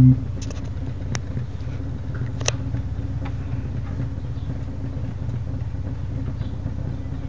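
A held synthesizer note cuts off right at the start, leaving a steady low hum. A few sharp clicks come in the first few seconds.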